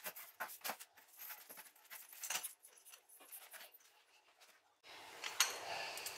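Faint rustling and small clicks of cord being pulled through and smoothed along a crocheted piece by hand, with a few light knocks.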